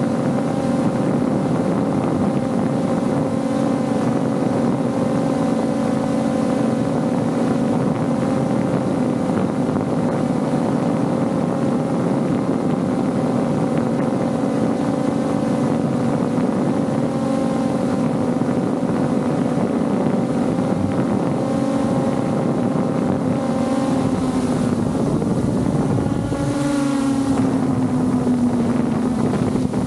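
AE86 Pro Max quadcopter drone's motors and propellers humming steadily, heard up close from the camera slung beneath it. From about 24 seconds in, the pitch wavers and glides as the motor speeds change.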